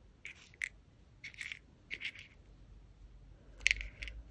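Small metal earring studs and backs clinking and scraping against each other as fingertips sort through them in a small box: a handful of light, separate clicks, the sharpest about three and a half seconds in.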